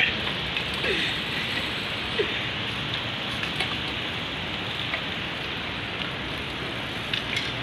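Steady rushing noise of wind and bicycle tyres on the road, picked up by a phone microphone on a moving bicycle.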